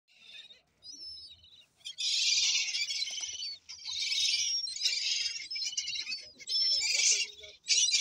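A flock of gulls calling, shrill harsh cries in overlapping bursts of about a second each, with a few short whistled notes among them, gathered for food.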